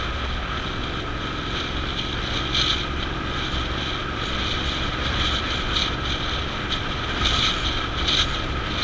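Steady road noise of a car driving on a highway, heard from a camera mounted on the vehicle: a low rumble with a high whine over it and short rattles now and then.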